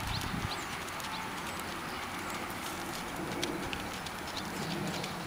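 Outdoor background with birds chirping and a dove-like cooing.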